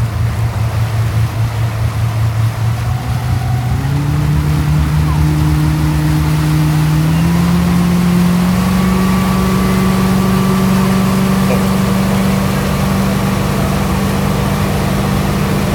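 Motorboat engine picking up speed in two steps, about four and about seven seconds in, then running steadily at the higher speed while towing a tube, over rushing wake water.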